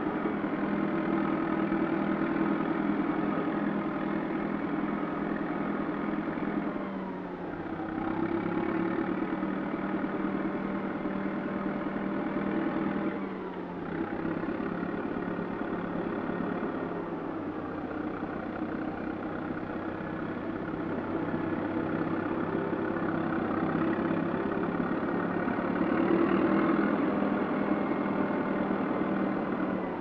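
Rome plow bulldozer's diesel engine running steadily. Its pitch sags and the sound dips briefly twice, about seven and thirteen seconds in.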